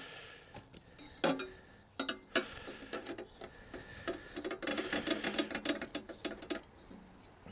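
Exhaust pipes being handled and fitted onto a diesel air heater's ports: irregular clicks and rattles, with a fast run of clicks through the middle few seconds.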